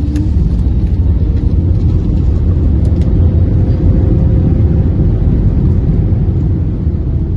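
Airliner cabin noise during landing: a loud, steady low rumble of the engines, airflow and runway, with a faint steady tone above it.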